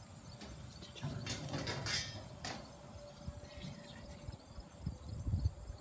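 Galvanized steel gravity dog feeder clattering as its feeding tray and lid are handled, with a few sharp metallic rattles between about one and two and a half seconds in, then softer knocks near the end.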